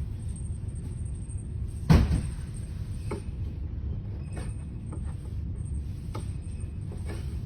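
A sharp knock about two seconds in, then a scatter of light clicks and taps, like small tools being handled and set down, over a steady low rumble.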